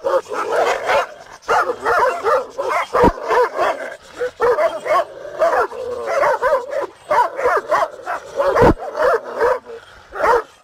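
Several Kangal shepherd dogs barking at each other in rapid, overlapping volleys. Two dull low thumps cut through, one about three seconds in and one near the end.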